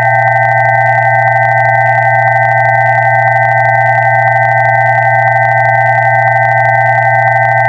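Several steady electronic pure tones sounding together without change: a low hum, a cluster of middle tones and two higher, thinner tones, held at an even level.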